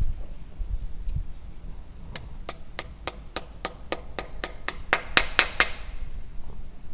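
About fifteen quick, sharp taps, roughly four a second, louder near the end: a patched lead ball being tapped down into the muzzle of a .36 calibre black powder muzzle-loading match pistol while it is loaded.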